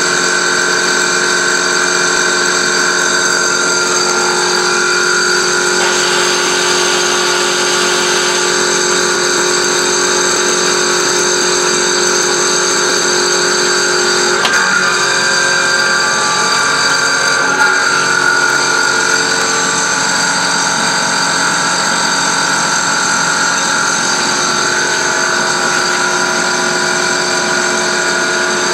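Sachman X12 CNC milling machine's end mill taking a roughing pass in AISI 304 stainless steel: a steady, loud spindle whine of several tones over cutting noise, which shifts and wavers briefly about halfway through.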